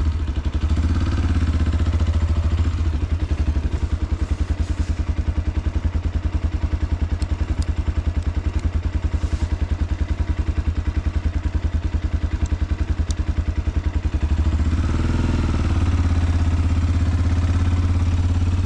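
Motorcycle engine running at a low, even pulse, growing a little louder about fourteen seconds in.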